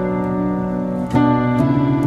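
Background instrumental music: calm, sustained chords, with new notes struck a little past halfway through and again shortly after.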